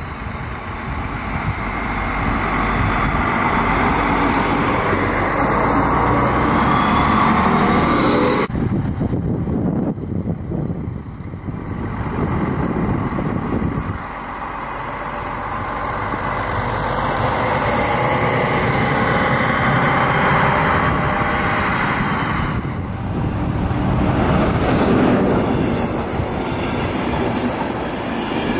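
Trains running through a station: a diesel railcar runs in and past, then the coaches of a locomotive-hauled passenger train roll by. The sound changes abruptly three times where separate recordings are spliced together.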